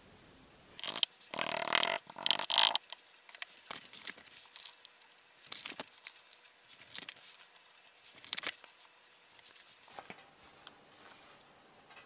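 Loose casting sand being scooped and packed by hand into a wooden mold box around a foam pattern: gritty scraping and crunching, loudest in a dense stretch about one to three seconds in, then scattered short rustles and scrapes.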